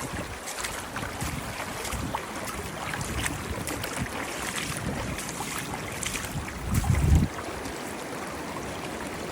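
Water splashing and lapping, with many small splashes. A brief low rumble of wind on the microphone comes about seven seconds in.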